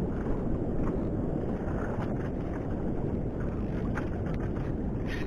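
Steady low rumble of wind buffeting the camera microphone over open sea, with a few faint ticks.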